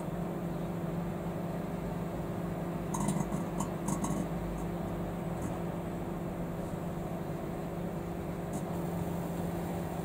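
Microwave oven running with a shorted metal halide lamp inside, a steady low hum throughout with a few faint ticks about three to four seconds in.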